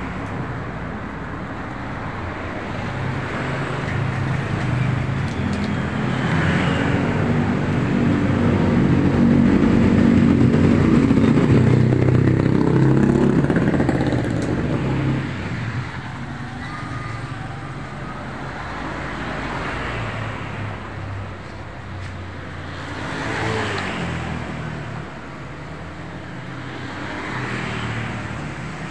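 Road traffic passing close by: a heavy engine grows louder from a few seconds in, is loudest near the middle and fades away, followed by a few lighter vehicles passing one after another.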